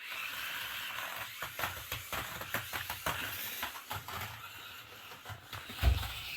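Mini remote-control stunt car running in its automatic 'showtime' stunt mode: a steady high whine from its small electric drive motors, with irregular clicks and knocks throughout and one heavier thump shortly before the end.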